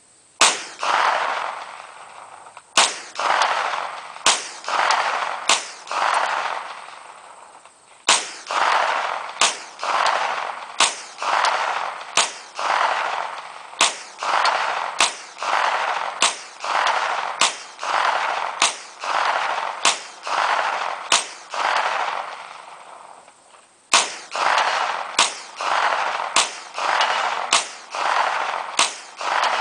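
Semi-automatic Vector Arms Uzi 9mm fired one shot at a time, about twenty shots, mostly a second or a second and a half apart, with a few longer pauses between strings. Each shot is a sharp crack followed by an echo that rolls off over about a second.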